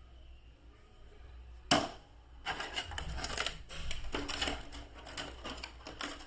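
Plastic toy packaging being handled to unbox an action figure: a sharp click about two seconds in, then a run of irregular crackling and clicking.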